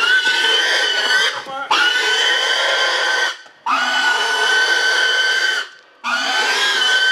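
A large hog squealing in distress while it is held down for slaughter: four long, loud, steady-pitched squeals with short breaks between them.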